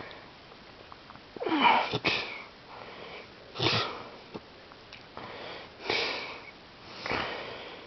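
A sleeping man snoring: a run of noisy breaths about every second or so, the loudest about one and a half seconds in.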